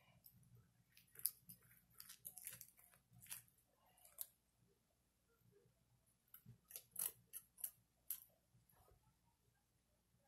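Faint, scattered crackles and clicks of a homemade squishy being handled and picked apart close to the microphone, coming in two short spells with near quiet between.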